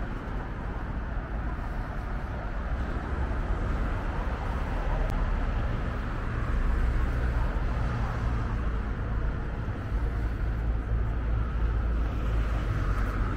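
City street ambience of road traffic: a steady wash of traffic noise over a low vehicle rumble that swells a few seconds in and again near the end.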